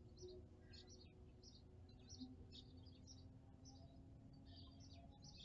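Faint chirping of small birds, short high calls coming several times a second, over a low steady background rumble.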